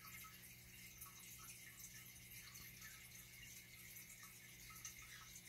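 Faint aquarium bubbling from rising air bubbles, over a steady low hum.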